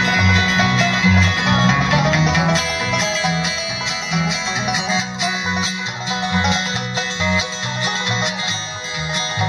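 Bluegrass band playing an instrumental break without vocals: a banjo picking quick notes over guitar, with a bouncing low line of notes underneath.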